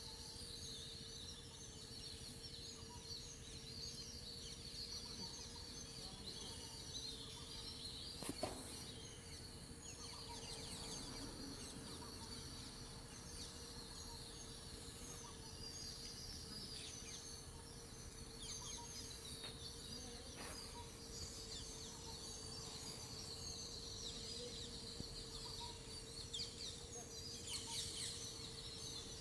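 Faint background of many small birds chirping continuously, over a steady low hum, with a single sharp knock about eight seconds in.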